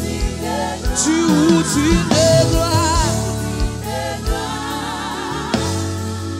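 Live gospel worship song sung in Haitian Creole: women singing a wavering lead line with backing harmonies over keyboard and a steady kick-drum beat.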